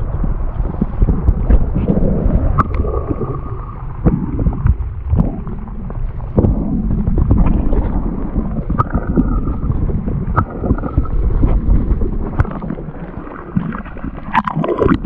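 Water heard through a camera held underwater: a dense, muffled rumble and gurgle with many irregular sharp clicks and knocks.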